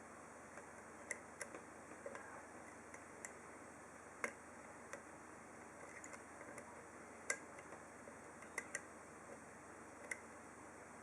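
Faint, irregular metallic clicks of a deep-hook lock pick working the pin stack of a TESA padlock's half euro cylinder during single-pin picking. About a dozen light clicks, the loudest around four and seven seconds in.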